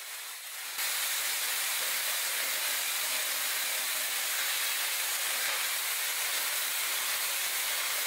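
Zuvi Halo hair dryer blowing, with a steady airy hiss; it comes on at a lower level and steps up to full blow a little under a second in.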